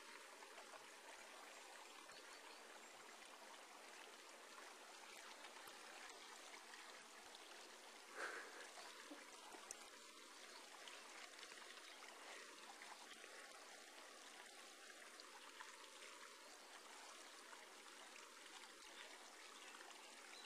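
Near silence: a steady faint hiss, with one brief faint sound about eight seconds in.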